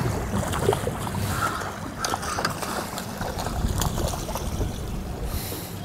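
Water sloshing and splashing against the side of a fishing boat as a hooked fish is brought up alongside, over a low steady hum.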